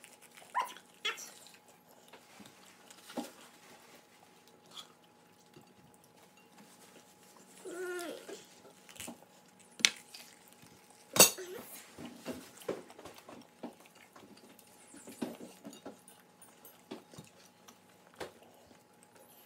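Quiet mealtime sounds at a dining table: scattered small clicks and clinks of cutlery and dishes, with two sharp clinks near the middle, the louder a little after eleven seconds in. A short pitched, call-like sound comes around eight seconds in.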